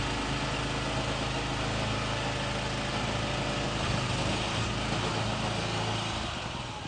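Container delivery truck's engine running steadily at idle during loading of the storage container; near the end the deepest part of the hum thins out and the level dips slightly.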